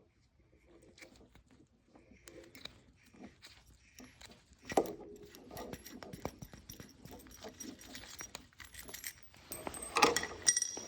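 Park Tool CT-3.2 chain tool being cranked to press a pin out of a bicycle chain to break a link: a run of small metallic clicks, creaks and chain rattles, with louder clacks about five seconds in and near the end.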